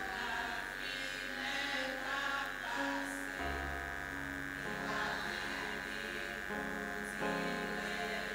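A group of women singing a hymn in held notes, with low bass accompaniment joining about three and a half seconds in, over a steady high-pitched electrical whine.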